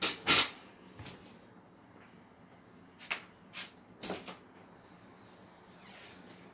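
A few sharp clicks and knocks, as of things being handled or set down. Two louder ones come right at the start, and fainter ones come about three to four seconds in.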